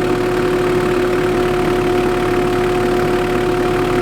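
JCB Midi CX backhoe loader's engine idling steadily, with a constant whine riding over the engine noise.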